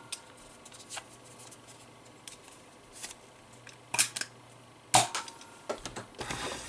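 Plastic clicks and clacks of a Nerf N-Strike Snapfire blaster being handled and cocked, with a louder spring snap about five seconds in. Rustling near the end.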